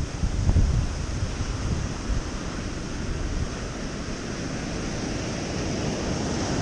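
Ocean surf washing steadily on a beach, with wind buffeting the microphone in gusts, strongest in the first second.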